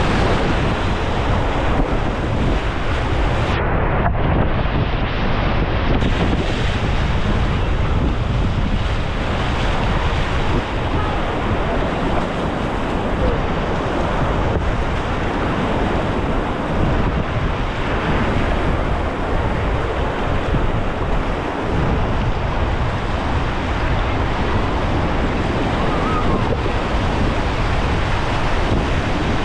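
Whitewater of a class III+ rapid rushing and splashing steadily around a kayak, close to the boat-mounted camera's microphone, with wind buffeting the microphone.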